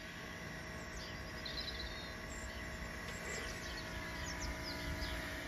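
Outdoor garden ambience: small birds chirping several times in short high notes over a steady low hum and rumble.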